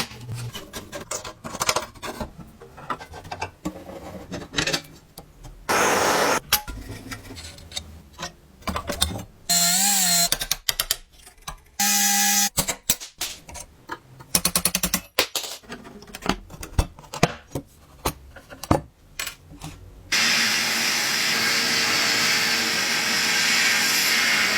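A run of workshop work sounds: clicks and knocks from hand work, short bursts of a small power tool, one with a wavering pitch, and a quick run of rapid strokes, then a steady hiss from about twenty seconds in.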